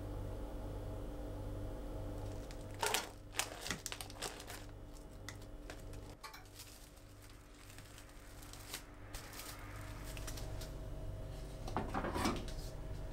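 Food-prep handling noises over a steady low hum: a spoon clicking against aluminium foil trays as sauce is spooned in, then a plastic bag crinkling as shredded cheese is sprinkled. A few more clicks and knocks come near the end.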